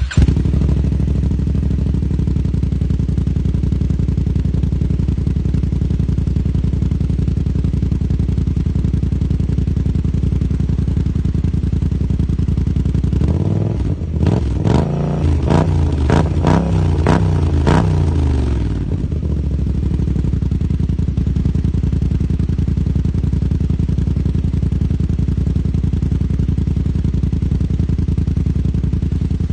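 Kymco AK550's parallel-twin engine idling steadily through an Akrapovič full exhaust system. About halfway through it is given a quick series of throttle blips, with the pitch rising and falling on each, then it settles back to idle.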